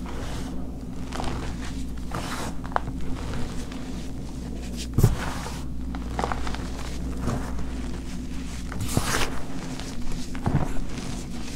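Hands squeezing, scooping and crumbling a pile of crushed purple chalk: soft crunching and powdery rustling in irregular handfuls, with one sharper thump about five seconds in. A low steady hum runs underneath.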